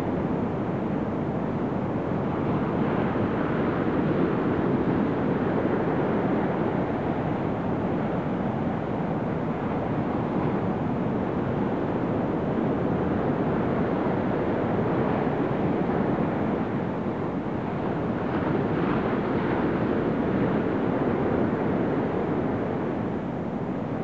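Steady rushing background noise of wind and surf, without bird calls.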